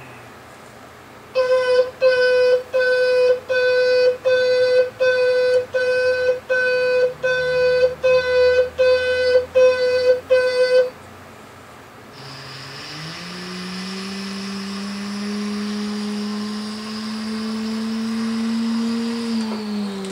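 Toy truck's electronic reverse-warning beeper sounding about fourteen evenly spaced beeps, roughly one and a half a second. After a short pause the toy's electronic engine sound runs, slowly rising in pitch and then dropping away near the end.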